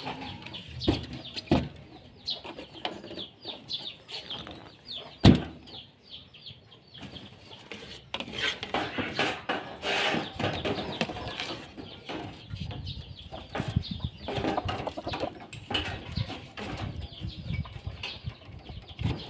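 Chickens clucking in a rapid, steady string of short calls, with one sharp knock about five seconds in.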